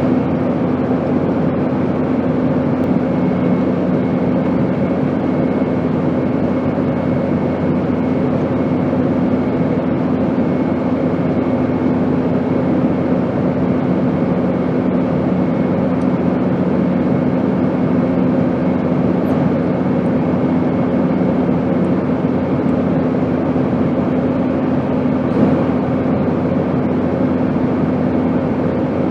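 Steady airplane noise: an even rushing hiss with a low, unchanging hum under it.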